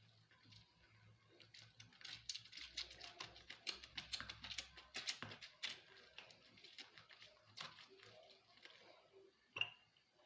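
A lemon being squeezed, a run of faint wet squishing and crackling from the pulp and rind. Near the end there is one sharp clink of a dish or glass.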